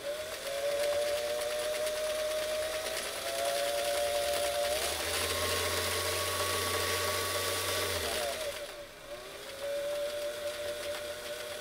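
Singer Model 337 sewing machine's electric motor running under the hand-pressed, newly rebuilt foot controller, its whine stepping up in speed twice and holding higher, then slowing almost to a stop about two-thirds through before running steadily again at a lower speed. The controller now gives variable speed control.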